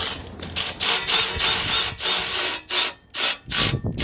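Hand ratchet wrench clicking through about seven quick strokes, a little under two a second, while turning a long-tube header bolt.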